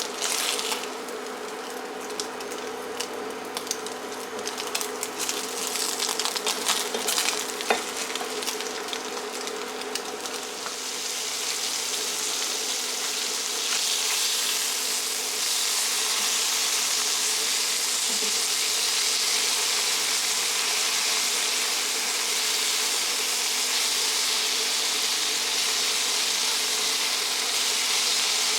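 Food frying in hot oil in a pan: crackling and popping for the first ten seconds or so, then settling into a steady, louder sizzle, with a faint steady hum underneath.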